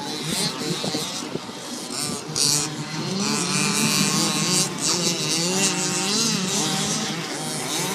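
Radio-controlled car's motor revving up and easing off again and again, its pitch rising and falling.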